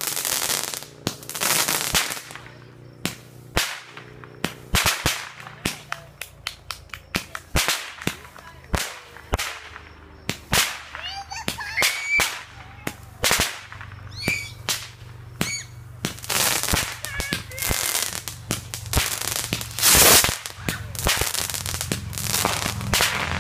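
Consumer aerial fireworks going off in quick succession: a long run of sharp bangs and crackling pops with hissing launches in between, the loudest bang about twenty seconds in.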